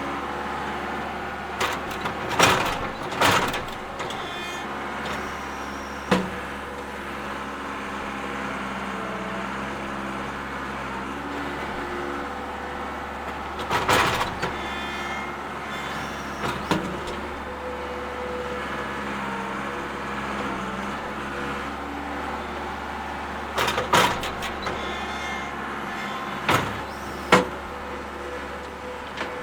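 Bobcat skid-steer loader's engine running steadily, with sharp clanks or knocks every few seconds, several in quick clusters. The knocks are the loudest sounds.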